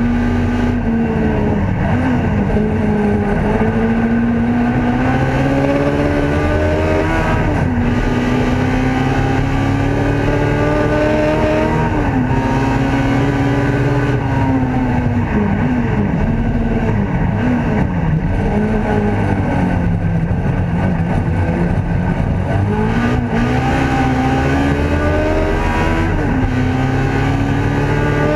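Ford Escort race car's engine at full throttle, heard from inside the cockpit: the pitch climbs steadily through each gear and drops sharply at each upshift. Around the middle there is a run of quick rev blips as the driver downshifts under braking.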